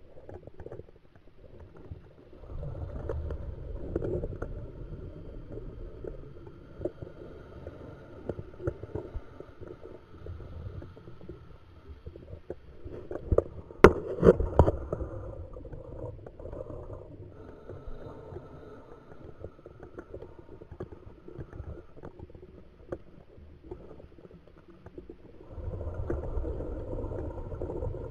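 Scuba diver's exhaled bubbles rumbling and gurgling underwater in surges every several seconds. Scattered sharp clicks and knocks are heard, and the loudest surge comes about halfway through.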